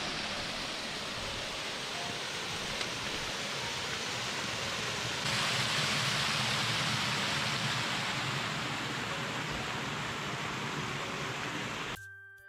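Rushing water: a steady, full noise that steps up a little louder about five seconds in and cuts off suddenly near the end.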